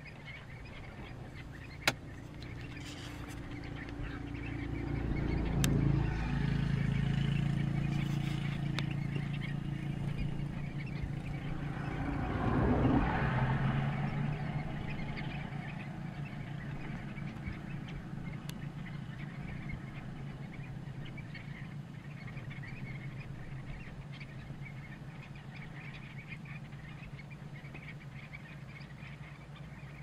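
A motor vehicle's engine and tyres swelling up about five seconds in, rising again to a peak around thirteen seconds as it passes, then fading away. A single sharp click about two seconds in.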